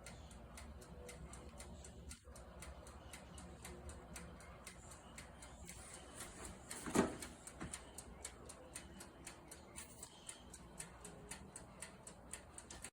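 Wind-up mechanical timer of a compact toaster oven ticking fast and evenly, counting down while the oven runs. There is a single louder knock about halfway through.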